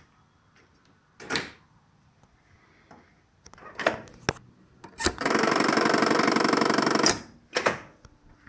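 Keys and levers of an electromechanical signal-box interlocking frame clunking several times, with a steady rapid rattling buzz lasting about two seconds in the middle, the loudest sound here.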